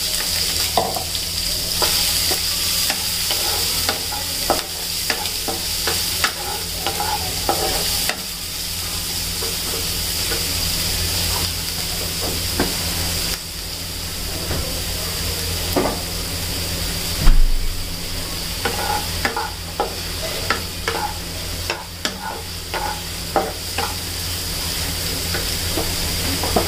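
Chopped onions and green chillies sizzling in hot oil with cumin seeds in a non-stick kadai, stirred with a wooden spatula that scrapes and knocks against the pan. The frying hiss holds steady under the frequent short strokes, with one louder knock about two-thirds of the way through.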